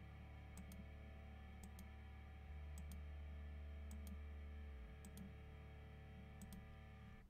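Computer mouse button clicking about once a second, each click a quick pair of sharp ticks, over a faint low steady hum.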